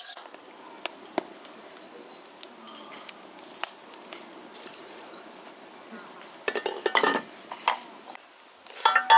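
Metal pot lid and cookware clinking and clattering as the lid is lifted off a steaming cauldron and set back on. A few light clicks come first, then clattering about two-thirds of the way in, and the loudest clatter near the end.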